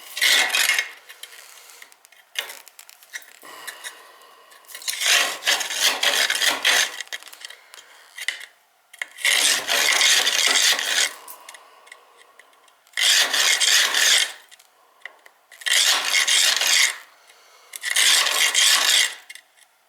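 Flue brush scraping through a choked oil boiler's flue passages in six long rasping strokes a few seconds apart.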